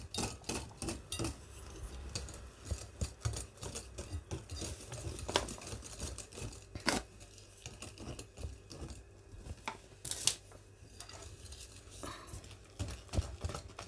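Wire whisk stirring flour into a thick batter in a glass bowl, its wires clicking and tapping against the glass in a quick, irregular rhythm, with a louder scrape or knock about ten seconds in.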